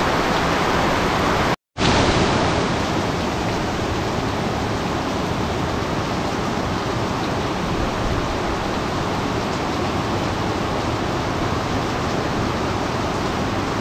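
Heavy monsoon rain pouring down in a steady, even hiss, broken only by a very short gap of silence about a second and a half in.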